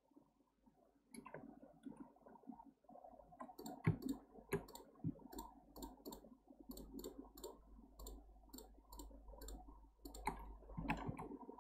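A run of light, quick clicks from a computer mouse, a few a second, starting a few seconds in, over a faint low hum.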